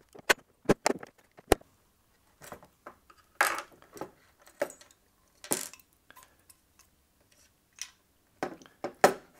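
Partly disassembled Fujitsu server hard drive's metal casing handled on a tabletop: sharp metallic clicks and taps in the first second and a half, scraping as a utility knife works at its underside, and a few knocks near the end as it is turned over.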